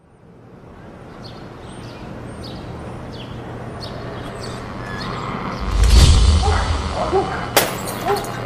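Edited intro sound: ambience fading in with short high chirps, then a deep bass boom about six seconds in, the loudest part, and a sharp hit near the end.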